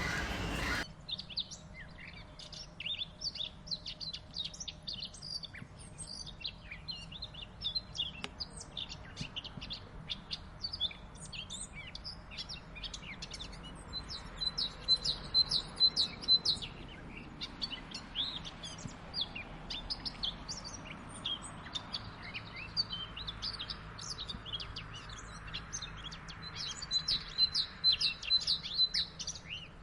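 A chorus of small birds chirping and twittering continuously, many short calls overlapping. Twice, once around the middle and once near the end, a bird gives a quick run of evenly spaced high notes.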